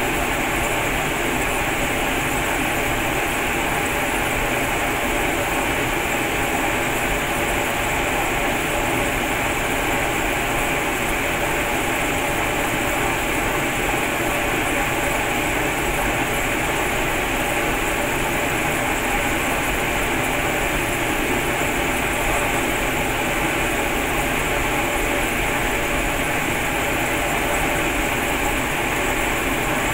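Cremation furnace running with the coffin burning inside: the burners and fans make a steady, even rushing noise with a faint hum, unchanging throughout.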